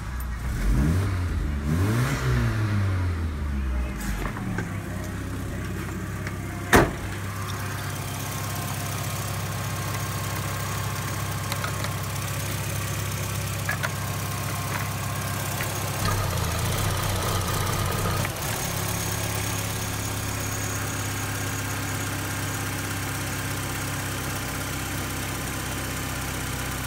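VW Passat B4's 2.0-litre 2E four-cylinder petrol engine running just after a start: the revs rise and fall a few times in the first few seconds, then settle into a steady idle. One sharp click about seven seconds in, and a brief rise in revs around sixteen seconds in.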